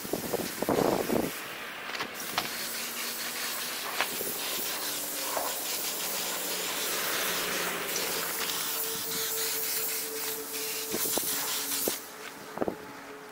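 Compressed-air paint spray gun spraying, a steady hiss in long passes. It breaks off briefly near the start and stops about a second before the end.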